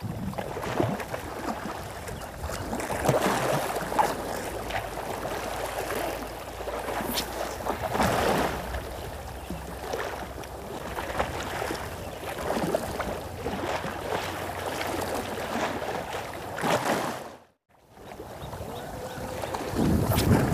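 Small sea waves sloshing against the stone blocks of a jetty, swelling every second or two, with a low wind rumble on the microphone. The sound cuts out for a moment near the end.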